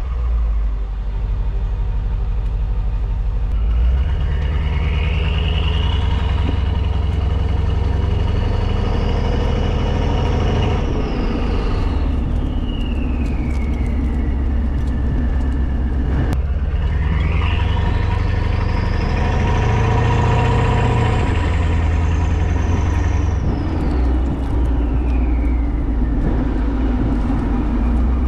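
Exhaust of a Mercedes S550's twin-turbo V8, fitted with catless downpipes and a Stage 2 tune, heard at the tailpipe while the car drives. It runs with a steady low rumble, building and easing off twice, with a high whine rising and falling each time.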